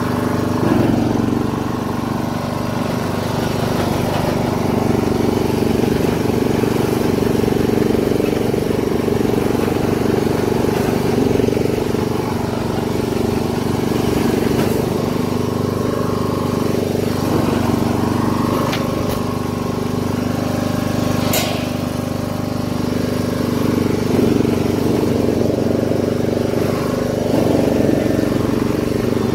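Castle Garden ride-on lawn mower's engine running steadily as the mower drives along, with a few sharp clicks in the second half.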